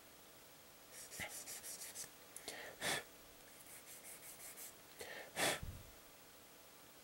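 Faint light clicks and taps of small plastic model-kit parts being handled, in two quick runs, with two short louder rushes of breath-like noise a little before 3 seconds and about 5.5 seconds in, the second the loudest.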